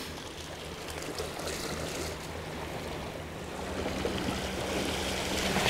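Sea waves washing against rocky shore, a steady hiss of surf that grows a little louder toward the end.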